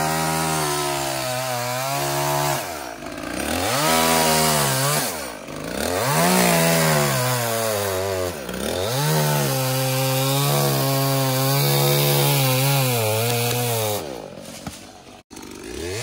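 Chainsaw cutting limbs from a tree, its engine revving up into the cuts and dropping back several times between them. The engine falls away near the end.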